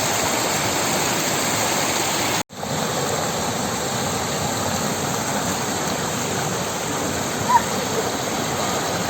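Waterfall: a steady rush of falling water. There is a brief gap about two and a half seconds in, where the sound cuts out for an instant.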